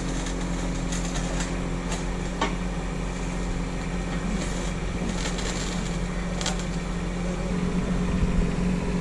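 Bobcat E10 mini excavator's small diesel engine running steadily as the tracked machine creeps down a wooden plank ramp, with a sharp knock about two and a half seconds in. The engine gets a little louder near the end.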